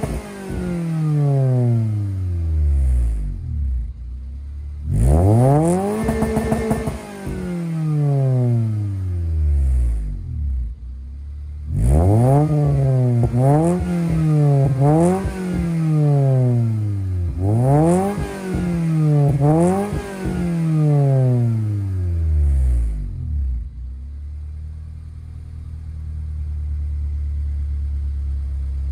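Honda Civic's D15B7 four-cylinder revved in the driveway through an aftermarket D-series header, a test pipe with no catalytic converter, and a Yonaka catback exhaust. There is one long rev held high about five seconds in, then two runs of quick throttle blips rising and falling. The engine settles to a steady idle near the end.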